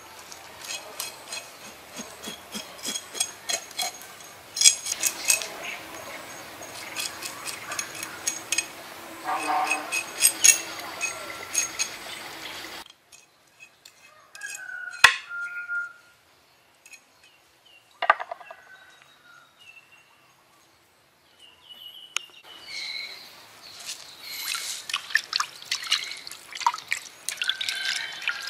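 A knife scraping and cutting a whole fish on a wooden cutting board, a dense run of scratchy clicks that stops abruptly about halfway. After a quieter stretch with a few faint clicks, hands slosh the fish in a bowl of water near the end, with splashing and dripping.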